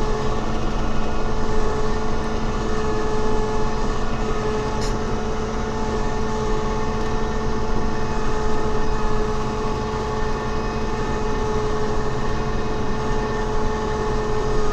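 Kubota farm vehicle's engine running steadily with an even hum, heard from on board while driving slowly through snow.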